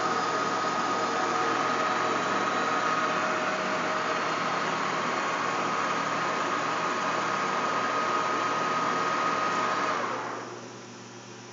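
TOS Trenčín SN40 gap-bed lathe running with a steady machine whine. About ten seconds in it is switched off and winds down within a second, leaving a faint steady hum.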